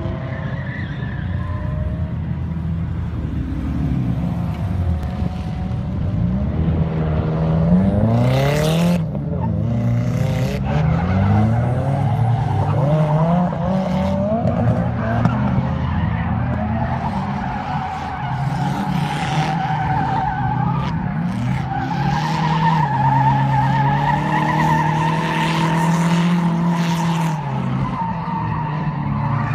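Nissan S13's turbocharged KA24DET four-cylinder drifting around a skidpad: the engine revs rise and fall over and over with the throttle, and the rear tyres squeal and skid in repeated bursts.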